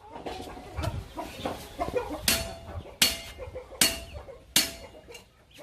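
Four ringing hammer blows on metal, about one every three-quarters of a second, starting about two seconds in, typical of forging a knife on an anvil. Chickens cluck in the background.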